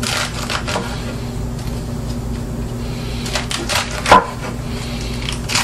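Kitchen knife chopping a rolled bundle of collard greens on a cutting board: a quick run of chops at the start, then another run about three to four seconds in ending in the loudest knock. A steady low hum runs underneath.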